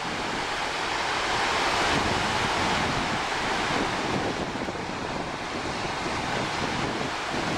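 Baltic Sea surf breaking steadily on a sandy beach, with wind buffeting the microphone.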